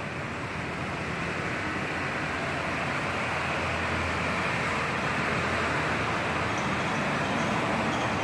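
Steady rushing noise of passing vehicle traffic, growing gradually louder.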